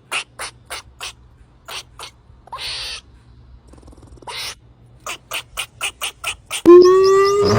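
An animal calling in short raspy bursts, slowly at first and then in a quicker run, followed near the end by a loud, sustained pitched call that slides in pitch.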